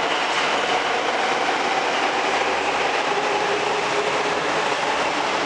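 Delhi Metro train running along the platform: a steady rush of wheel and motor noise with a faint whine, the train slowing as it pulls in.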